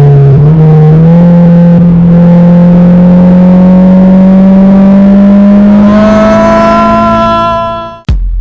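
Honda Civic Si's K20Z3 four-cylinder engine and exhaust under a hard pull, revs climbing steadily for about eight seconds, then cutting off suddenly, followed by a brief low thud.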